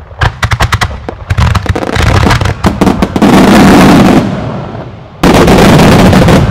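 Starmine fireworks barrage: a rapid string of sharp bangs in the first two seconds, building into a dense continuous crackle and rumble of bursts that eases off after about four seconds. A little after five seconds a sudden, very loud burst comes as a large shell breaks.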